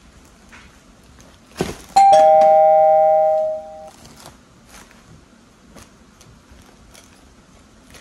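Two-note ding-dong doorbell chime, a higher note then a lower one, ringing loudly for about two seconds and fading away. Just before it comes a short thump, and afterwards a few faint rustles and clicks.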